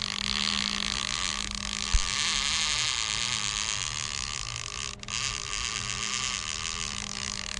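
Maruri Black Tamba baitcasting reel's drag buzzing steadily as a hooked fish pulls line off the spool, with a brief break about five seconds in.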